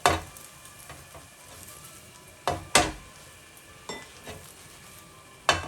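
Thin sheet of beaten egg sizzling in a frying pan, with several sharp clatters of a utensil against the pan as the egg is flipped over.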